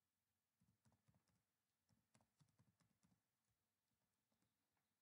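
Very faint typing on a computer keyboard: quick keystrokes in two runs, one starting about half a second in and a longer one from about two seconds to three and a half seconds in.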